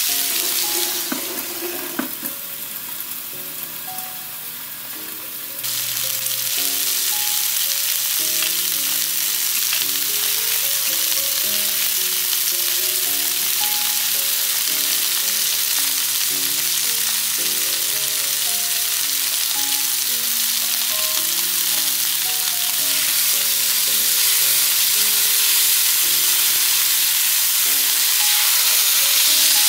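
New York strip steaks searing on an electric griddle at 500°F, with a steady, dense sizzle that dips for a few seconds near the start. A few light clicks of metal tongs come about two seconds in. Gentle melodic background music plays throughout.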